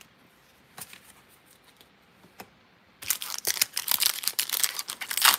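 Foil Pokémon booster pack wrapper crinkling loudly as it is torn open by hand, starting about three seconds in after a few faint taps.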